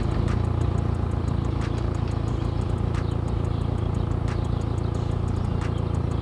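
Renault 12 (Toros) four-cylinder petrol engine idling steadily, just after starting.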